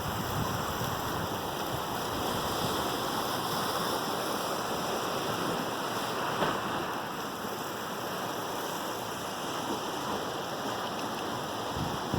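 Rough sea: a steady wash of waves and surf.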